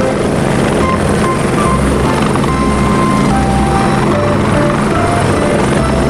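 Helicopter sound: a steady, loud whir of rotor and engine with a low, uneven beating.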